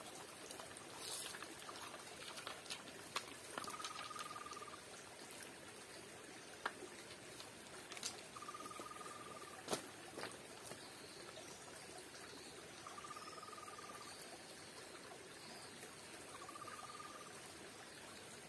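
Faint trickling of a shallow stream, with a few sharp knocks of stones being set in place by hand. A short, high chirping call repeats about every four to five seconds.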